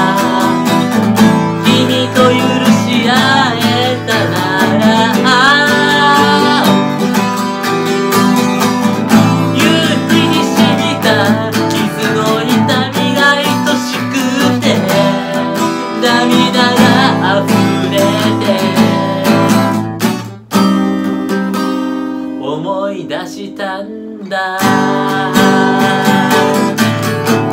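Acoustic guitar strummed in steady chords with a man's voice singing along. About twenty seconds in the strumming breaks off for a few seconds while a chord rings out, then the strumming starts again.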